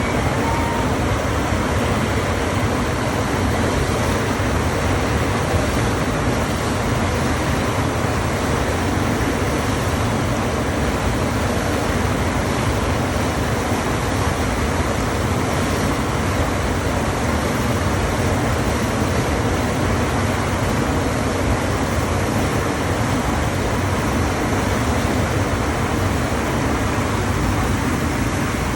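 FlowRider standing-wave machine: a steady, unbroken rush of pumped water sheeting up the ride surface.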